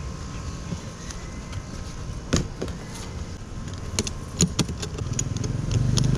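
Motorcycle top box being closed: a few sharp clicks and clacks as the lid comes down and its metal latch is snapped shut. Near the end a low engine rumble of a vehicle comes up.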